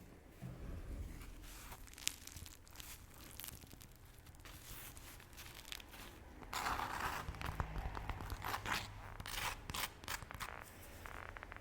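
Close-miked eating sounds: crunchy chewing and crackling clicks, with a short burst of rustling about six and a half seconds in.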